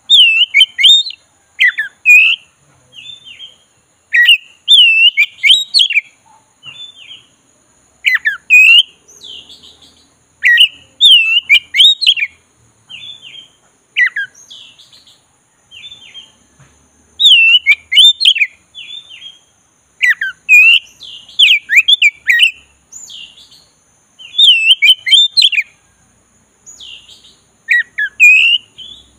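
Black-breasted Oriental magpie-robin singing: loud whistled phrases of rising and falling notes, given in clusters every few seconds with short pauses between.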